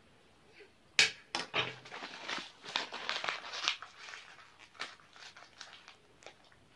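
Thin plastic bag crinkling and rustling as it is handled: a sharp crackle about a second in, a few seconds of dense crinkling, then lighter scattered rustles and clicks.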